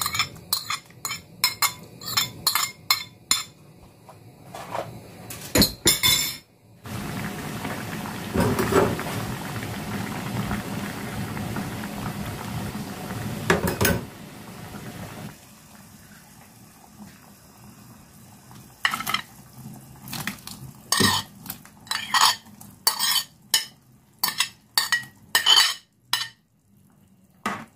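Ceramic dish and utensil clinking against a nonstick pot as wakame, dried anchovies and whole green chilies are tipped in. Then the anchovy-seaweed broth bubbles at a steady boil for about seven seconds. From about nineteen seconds in there is another run of sharp clinks and scrapes of a utensil on a ceramic plate as sliced fish cakes are pushed into the pot.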